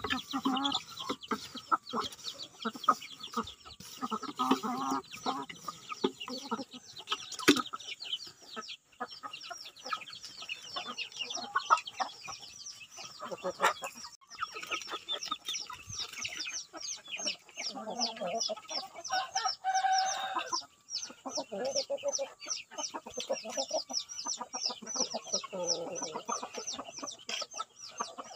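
Domestic chickens clucking as they crowd round feed, with a rooster crowing once about two-thirds of the way through. A fast series of high, falling chirps runs through much of it.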